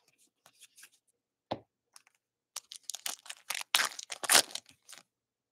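Foil trading-card pack being torn open, the wrapper crinkling and crackling in quick bursts, loudest about four seconds in. A single soft thump comes about a second and a half in.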